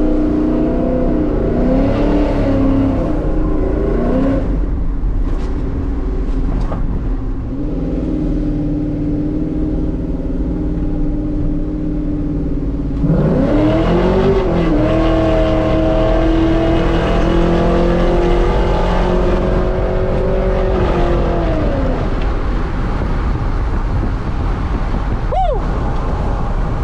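Cammed LS V8 of a GMC Sierra pickup running through long-tube headers and an X-pipe exhaust as the truck drives. It holds high revs for a few seconds, eases off to a steady cruise, then climbs again about halfway through and holds before easing off near the end.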